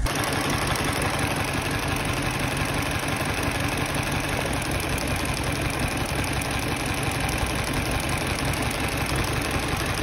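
Mini Cooper's four-cylinder Valvetronic petrol engine idling roughly, running on three cylinders with a one-cylinder misfire.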